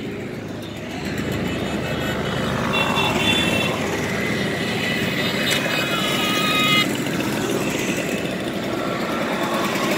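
A stream of Simson mopeds and scooters passing one after another, their small two-stroke engines running in a steady, overlapping mix.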